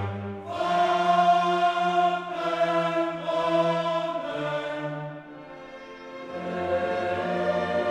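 Background music of held choral and orchestral chords, swelling and fading, with a quieter gap about five seconds in before the next chord enters.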